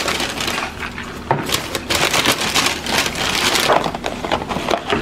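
Takeout packaging crinkling and rustling close up: a plastic carrier bag and paper bag being handled, then a cardboard burger box, with many short sharp crackles.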